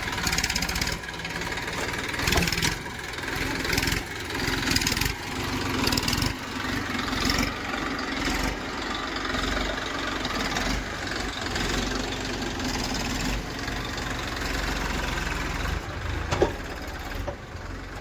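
Heavy diesel earth-moving machinery engine running steadily at low revs, with a sharp knock near the end.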